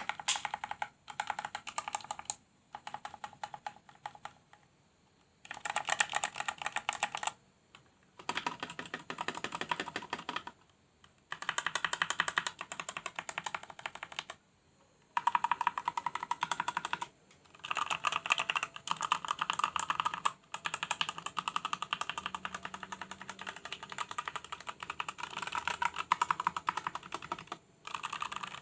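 Typing on a Cooler Master CK350 mechanical keyboard with Outemu Red linear switches: fast clacking keystrokes in bursts of a few seconds, broken by short pauses.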